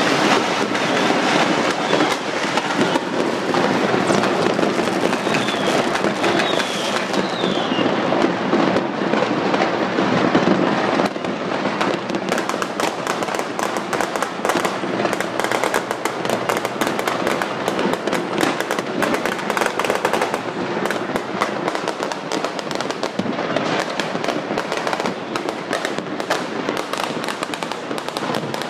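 Many fireworks and firecrackers going off at once, a continuous dense din of overlapping bangs, pops and crackle. There are a few short falling whistles around five seconds in.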